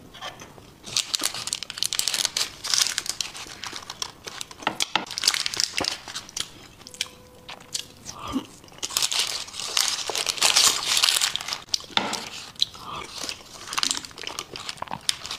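Close-miked eating of a thick, soft chocolate lava cake: a metal spoon scooping into the cake, chewing, and the parchment paper lining crinkling in short bursts.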